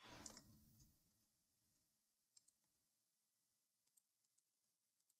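Near silence with a few faint, sparse computer mouse clicks, after a short soft noise in the first second.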